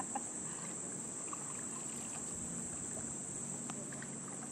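Insects in a steady, unbroken high-pitched chorus, with a faint low hum beneath.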